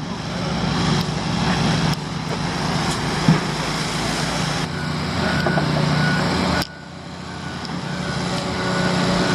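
Heavy diesel construction machinery running, its engine swelling louder, dropping off suddenly about two-thirds of the way through, then building again. A faint backup alarm beeps in the second half.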